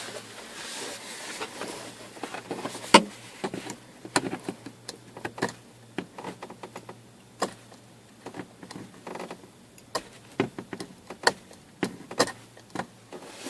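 Irregular clicks, taps and light knocks of hands handling parts in a truck's dash speaker opening, with one louder knock about three seconds in.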